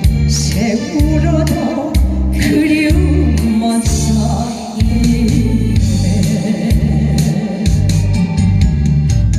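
Song with a backing track: a steady, evenly repeating bass beat with a singing voice over it.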